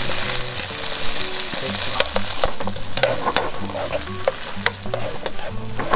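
Onion, green pepper and sausage sizzling in ketchup in a frying pan on a portable gas burner. From about two seconds in, metal tongs stirring the food and clicking against the pan.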